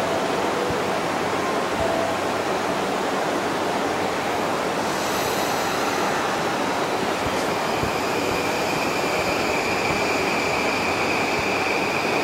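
Steady station-platform noise around a JR East E235-series electric train. From about halfway a steady high whine sets in as the train starts to move off.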